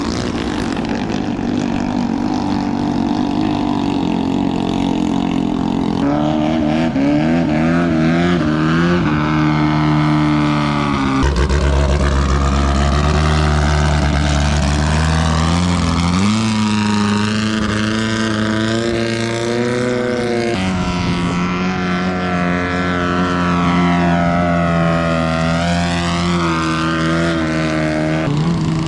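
Long-tail boat engine running, its pitch dropping and rising in steps several times as the throttle changes, with a deep low note strongest for a few seconds near the middle.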